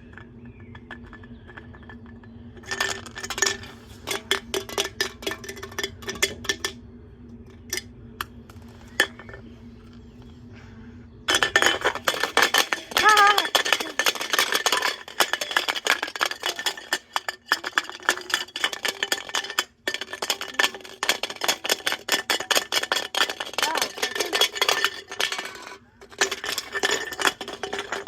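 Washing machine running with a steady motor hum, broken by short bursts of clattering. About eleven seconds in, the hum stops and a continuous fast metallic clattering and rattling takes over as the machine is shaken apart.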